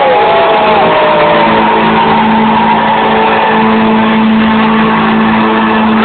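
Live rock band playing loud, a held low note under a dense wash of guitar and crowd noise, the recording distorted and near full level.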